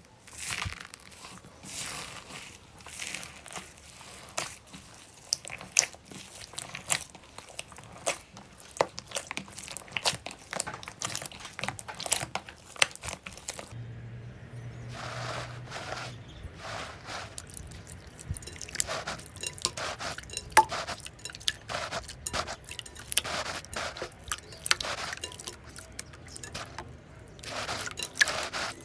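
Slime being squeezed and pressed by hand, with many small crackles and pops and soft squishing swells.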